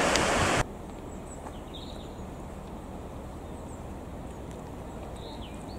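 A loud rushing noise cuts off suddenly within the first second. It gives way to a quiet low steady rumble with a few short, high bird chirps, one near the start and one near the end.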